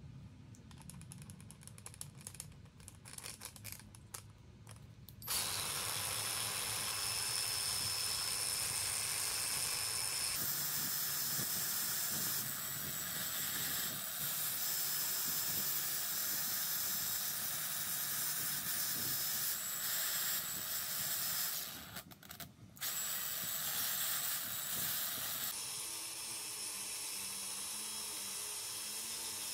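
Cordless angle grinder running steadily at speed with a faint high whine, starting about five seconds in after quiet handling noise. It cuts out briefly about two-thirds of the way through, then runs again.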